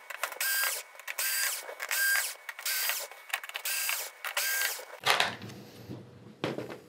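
Cordless electric screwdriver backing screws out of a TV main board: the motor whines in short pulses, about two a second, for several seconds. A couple of knocks follow as the tool is set down.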